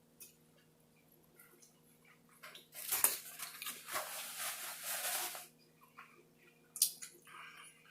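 Eating a fast-food burger meal close to the microphone: scattered small mouth and handling clicks, and a dense crackling noise from about three seconds in that lasts some two and a half seconds.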